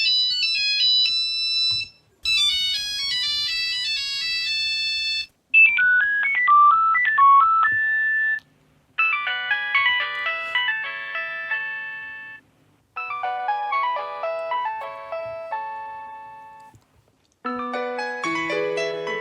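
A series of mobile phone ringtones played one after another, about six short melodies separated by brief pauses. The first ones are thin, high-pitched electronic beeping tunes; the later ones are fuller polyphonic tunes with lower notes and chords.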